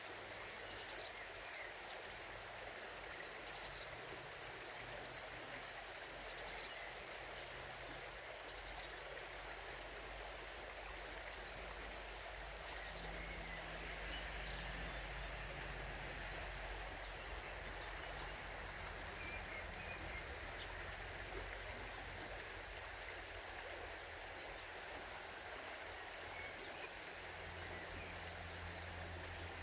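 Shallow river water running steadily over its bed. A small bird gives five short, high, sharp calls a few seconds apart in the first half, then a few fainter chirps.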